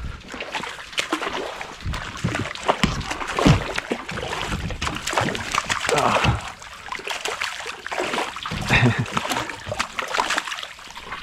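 Water splashing and sloshing beside a fishing kayak in irregular bursts, with scattered knocks.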